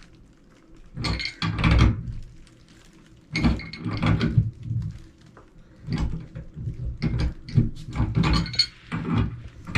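Irregular knocks, clunks and scraping from tools and toilet parts being handled during a toilet installation, in three bouts with short pauses between.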